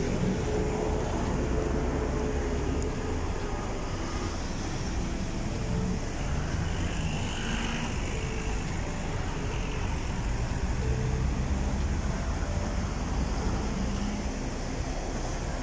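Steady noise of traffic on a busy seafront road mixed with surf breaking on the beach.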